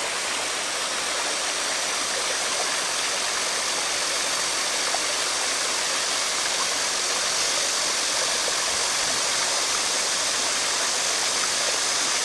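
Fish-farm aerator churning pond water, a steady rushing and splashing with a faint steady hum under it.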